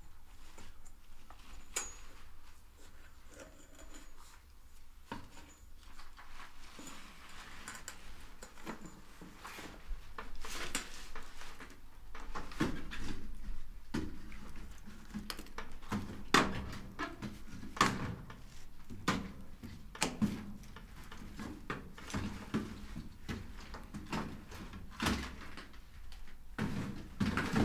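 Someone rummaging through debris and junk: irregular knocks, thuds and clatter over rustling, sparse at first and busier and louder from about ten seconds in.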